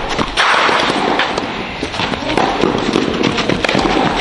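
Tennis rally on a clay court: racket strikes on the ball a second or two apart, over steady loud background hiss.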